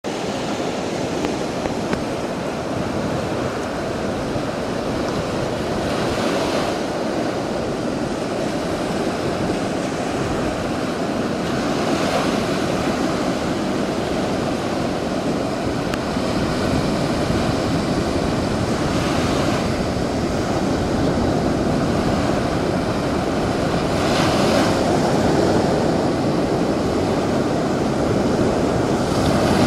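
Small Gulf of Mexico waves breaking on a sandy beach: a steady wash of surf, with a wave crashing every five to six seconds.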